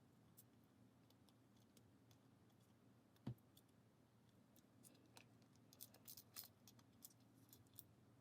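Faint clicks and taps of small cassette-player parts being handled and fitted back by hand. There is one louder knock about three seconds in and a cluster of light clicks in the second half.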